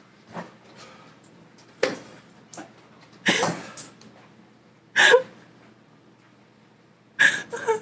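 Person letting out short, sharp coughs and gasps, five outbursts a second or two apart, some falling in pitch.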